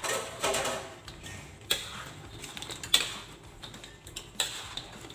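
Metal spoon stirring sauce-coated fried chicken wings in a wok, knocking and scraping against the pan with a few sharp clinks about every second and a half.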